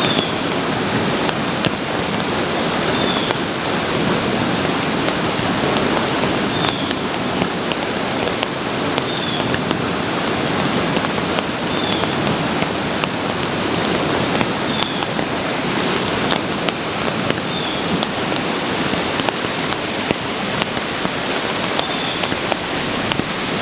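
Heavy rain and the rushing water of a flooding brook, a steady even hiss with no letup.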